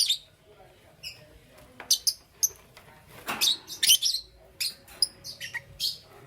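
Lovebirds chirping: a scattered series of short, sharp, high-pitched chirps in small clusters, with a louder, harsher call about three and a half seconds in.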